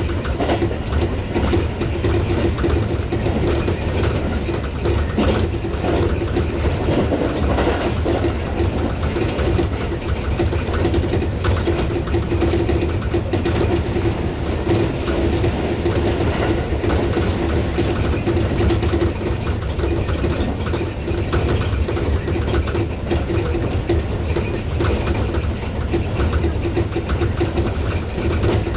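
Tobu 6050 series electric train running at speed on the line: a steady rumble of wheels on rail with a constant hum, unchanging throughout.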